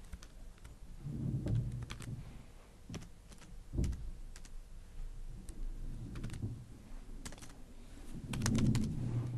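Computer keyboard typing: irregular, scattered key clicks, with a few low muffled sounds in between, the loudest near the end.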